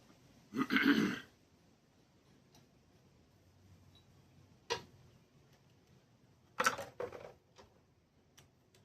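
Scattered clinks and knocks of hand tools and small-engine parts being handled: a short rattle about half a second in, a single sharp click near the middle, a cluster of knocks about two-thirds through, then a few faint ticks.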